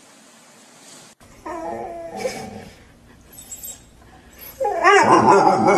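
A dog whining and yipping in two spells, a shorter one about a second and a half in and a louder one near the end.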